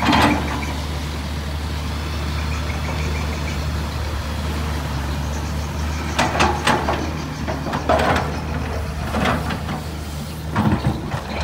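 Komatsu PC210 excavator's diesel engine running steadily under load, with several short bursts of scraping and clanking as the bucket digs and drags through soil.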